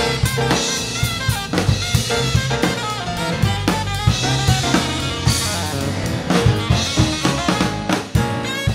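Live jazz-funk band playing: a drum kit lays down a busy groove of snare, bass drum and cymbals while a saxophone plays a melodic line over it.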